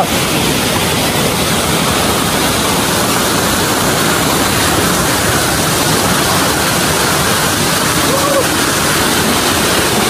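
Waterfall pouring down right at the microphone: a loud, steady rush of falling water splashing onto rock and over the phone.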